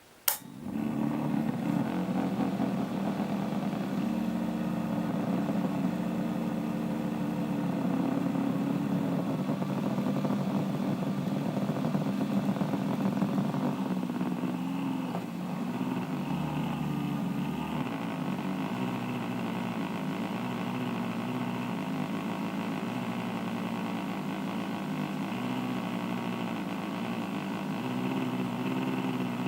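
A sharp click, then the cooling fan of an aged 400 W PC power supply spins up and runs steadily with a loud rattling, grinding noise ("garagara"): an abnormal noise from the worn fan.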